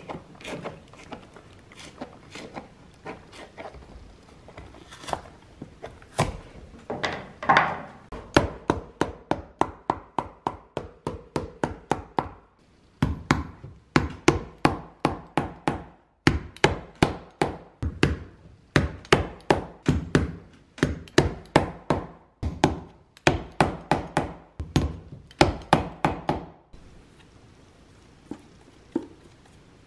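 Shoemaker's hammer driving nails into a stacked leather heel base: a long run of sharp strikes at about two a second with a few short pauses, after softer knocks in the first few seconds.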